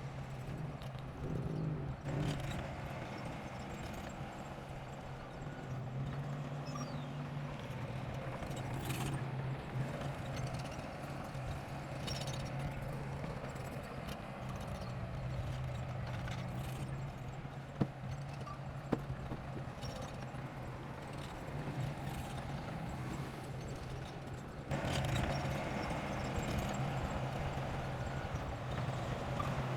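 Bulldozer engine running with a steady low hum and clatter over it. Two sharp knocks come a little past the middle, and the machine gets louder about five seconds before the end.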